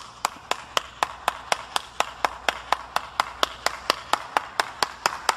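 One person clapping hands in a steady, even rhythm of about four to five claps a second.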